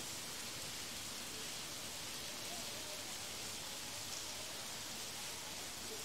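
Steady rain falling on foliage, an even hiss.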